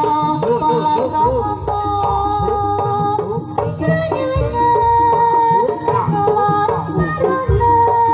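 Live jaranan ensemble music: kendang hand drums played fast, with pitch-bending strokes, under a held melody line, with a deep stroke every three to four seconds.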